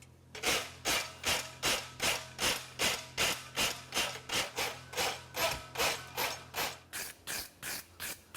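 Abrasive sanding tube rubbed back and forth along the edges of a steel horseshoe in steady, even strokes, about two and a half a second, finishing the shoe's inside edges.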